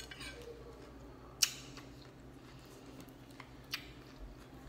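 Metal fork breaking into the baked top crust of a chicken pot pie and knocking the plate: a few sharp clicks, the loudest about a second and a half in and a smaller one about two seconds later.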